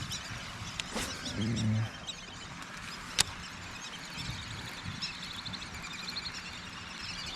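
Outdoor ambience with small birds chirping and trilling faintly, most busily in the second half, a single sharp click about three seconds in and a brief low hum just before it.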